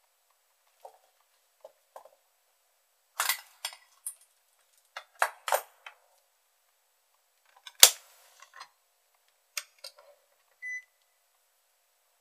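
Sharp clicks and knocks of a multimeter and its test probes being handled and set against a lithium battery's terminals on a circuit board. About ten seconds in, the meter gives one short electronic beep.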